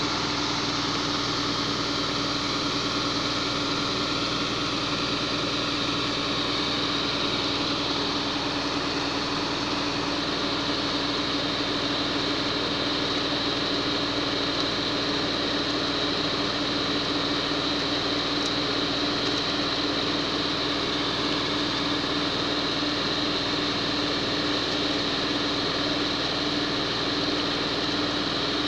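Concrete mixer truck's diesel engine running steadily at a constant pitch while its drum turns to discharge concrete down the chute.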